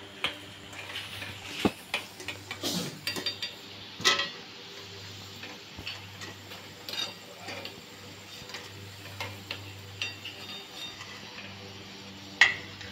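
Metal slotted ladle scraping and clinking against a kadhai and a steel plate as fried onion pakoras are lifted out and tipped onto the plate: irregular clicks and scrapes, with a sharp clank near the end, over a steady low hum.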